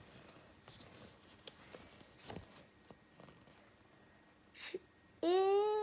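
A quiet room with a few faint small rustles, then near the end a child's drawn-out voiced sound of about a second, rising a little in pitch and then held.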